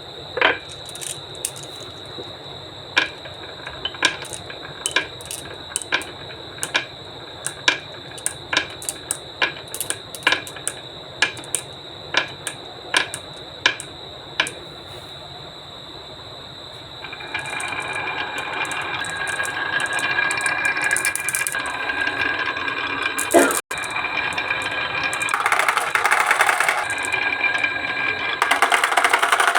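Wooden marble run: a string of sharp clacks as balls drop and bounce down the wooden ramps, then a longer, louder rolling rattle from about halfway, with a sharp knock in the middle of it.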